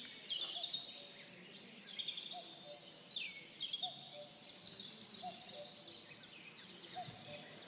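Birds chirping and twittering with quick, high, falling notes over faint outdoor background noise.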